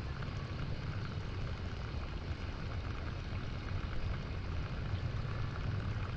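Tractor engine idling steadily, with water pouring out of its raised front-loader bucket in a constant splashing rush that sounds like air hissing from a tyre.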